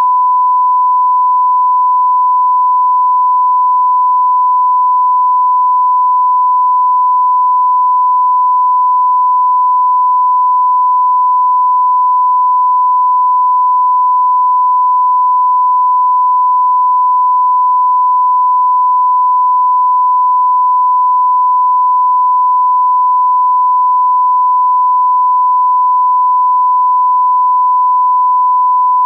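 Continuous pure sine test tone, one unchanging pitch at a constant level: the standard reference tone that goes with a television test card.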